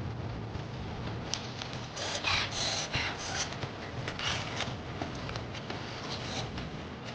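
Rubbing and rustling handling sounds, with a few short louder rustles between about two and four and a half seconds in.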